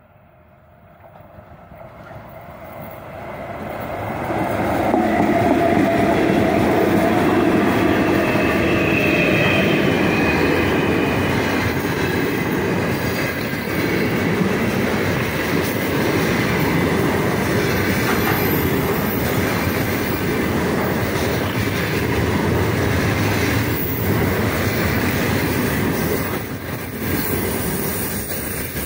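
Container freight train hauled by 2ES5K "Ermak" electric locomotives approaching and passing close by. It grows steadily louder over the first four or five seconds, then the loaded container wagons roll past with a steady rumble of wheels on rails.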